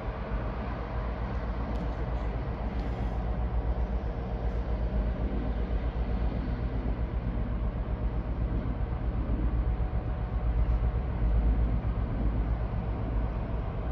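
Freight train passing: a Class 60 diesel locomotive hauling Drax hopper wagons, a steady low rumble that swells a little about ten seconds in.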